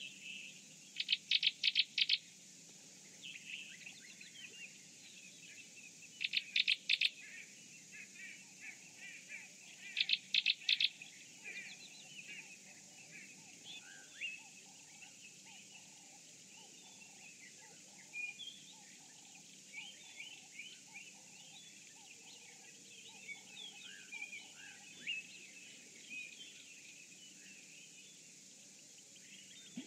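Several wild birds calling in an early-morning chorus. Many short chirps run throughout, with three loud bursts of rapid repeated notes about one, six and ten seconds in, over a faint low pulsing.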